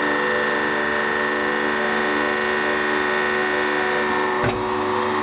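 Hydraulic press running with a steady whine of many fixed tones, with a single knock about four and a half seconds in.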